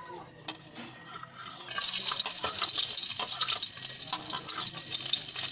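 Garlic cloves dropped into hot cooking oil in a wok, the oil suddenly starting to sizzle and crackle a little under two seconds in and frying steadily from then on.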